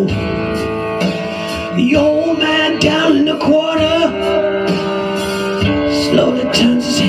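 Swamp-rock band music with guitar, between sung verses; a lead melody line slides and wavers in pitch in the middle.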